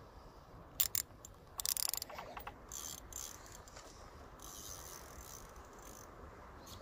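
Large spinning fishing reel being worked by hand: two sharp clicks just under a second in, then a quick run of ratchet-like clicking lasting under a second, followed by fainter scattered ticks.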